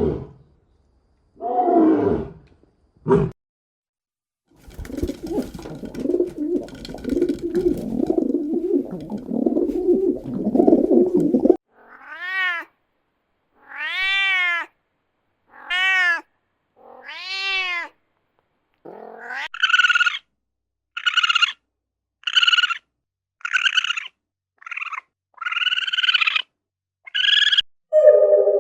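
A run of cat calls: a few falling, rough calls, a long stretch of low rumbling growl, then five drawn-out meows that rise and fall in pitch, followed by a quick string of shorter, higher mews.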